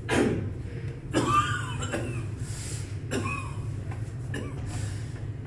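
A young man coughing and straining several times, short separate bursts with a pitched groan among them, acted as a dying king. A steady low hum lies under it.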